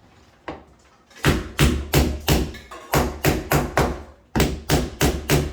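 Repeated hammer blows on the door hinge hardware, about three a second in short runs, starting about a second in.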